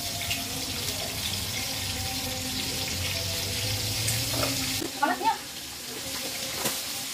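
Water running steadily in a kitchen, as from a tap, with a low rumble that cuts off abruptly about five seconds in. This is followed by a couple of brief sharp clattering sounds.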